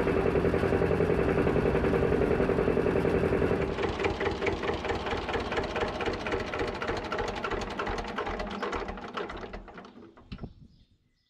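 Lanz Alldog A 1806's two-cylinder diesel engine running loudly under way, then, after a cut about four seconds in, clattering at idle and being shut off, running down and stopping near the end.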